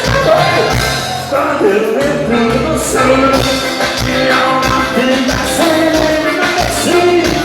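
Loud upbeat music with a steady beat and held melody notes, with some singing.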